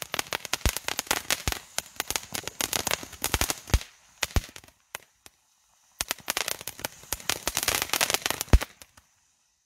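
Nico 'Funky Monkey' firework fountain compound spraying crackling sparks: dense, fast crackle. The crackle drops to near silence for about two seconds midway, broken by a couple of single pops, as one fountain tube burns out. It starts up again as the next tube ignites and dies away near the end.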